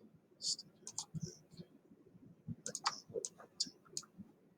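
Irregular clicks of a computer mouse and keyboard, a few light taps spread across a few seconds.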